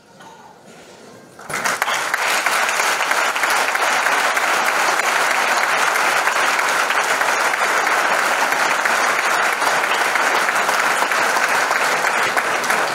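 Crowd applauding in a hall: the clapping starts suddenly about a second and a half in and then holds at a steady level.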